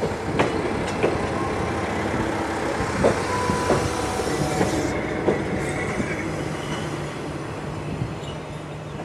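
Kanto Railway diesel railcar KiHa 2001 passing slowly close by, its diesel engine running with a steady rumble and its wheels clicking irregularly over rail joints and points. The sound fades in the second half as the railcar moves away.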